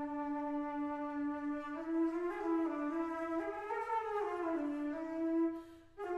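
Amplified flute played while the flutist sings into it, giving a buzzy, horn-like tone: one long held note, then from about two seconds in a slow melody that climbs step by step and falls back. It breaks off briefly near the end and then resumes.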